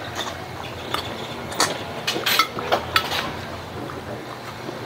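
Metal spoon clinking and scraping against a ceramic plate while eating, several sharp clinks in the middle seconds, over a low steady hum.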